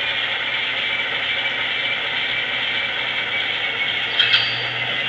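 HO-scale Baldwin Centipede model diesel locomotive creeping slowly in reverse, giving a steady mechanical chatter of its motor and gears mixed with engine sound from its small onboard speaker. Two sharp clicks come about four seconds in.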